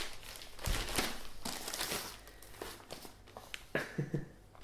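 Quiet rustling and light knocks of paper and cardboard packaging being handled, in short scattered bursts.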